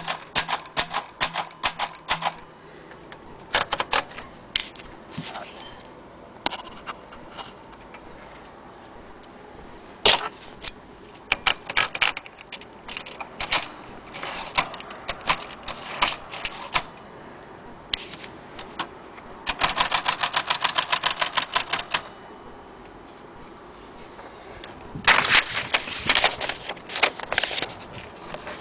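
Vintage Olympia typewriter being typed on: bursts of sharp key strikes separated by pauses, including a fast, even run of strikes about two-thirds of the way through.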